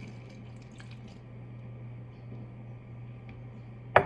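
A few faint drips of water over a steady low hum, just after a cup of water has been poured into cake mix, then one sharp knock at the very end.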